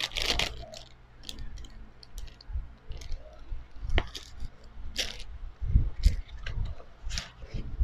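Small clear plastic bag crinkling as a micro USB cable is pulled out of it and handled, with scattered light clicks and taps of the cable. A few soft, dull knocks about six seconds in as things are set down.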